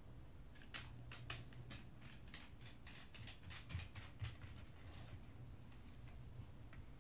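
A beagle's claws clicking on a hardwood floor as it walks, an irregular run of quick ticks that stops about five seconds in.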